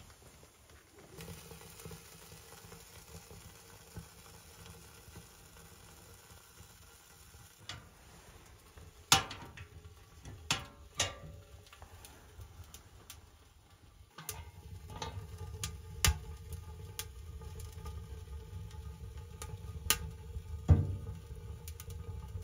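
Kindling fire crackling in a steel wood-burning stove as it catches, with sharp pops of burning wood every few seconds. From a little past halfway a steadier low rush joins the crackle.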